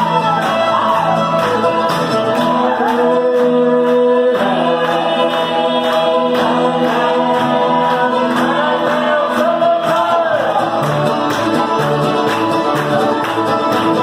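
Old-time string band playing a fiddle tune live: two fiddles carry a sliding melody over guitar accompaniment.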